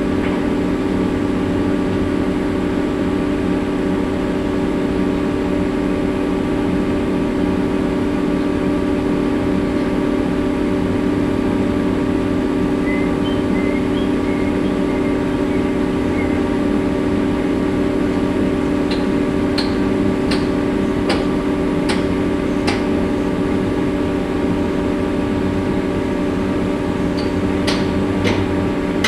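Grove GMK 165 mobile crane running steadily, a constant machine hum with strong steady tones. About two-thirds of the way in comes a run of sharp ticks, roughly one every 0.7 seconds, and a second short run near the end.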